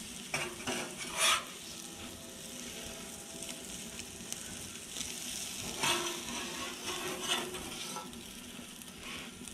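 Eggs and chopped beef sizzling on a Blackstone flat-top griddle, with a metal spatula scraping and tapping on the steel cooking surface a few times.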